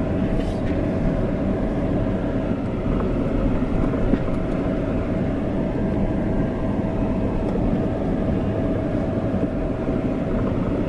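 Car driving, with steady engine and tyre rumble heard from inside the cabin and a faint constant whine over it.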